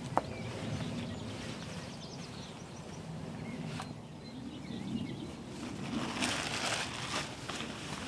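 Camouflage netting and clothing rustling as a person shifts about in a bush hide and pushes out of it, loudest about six to seven seconds in, with a couple of sharp clicks and faint birdsong.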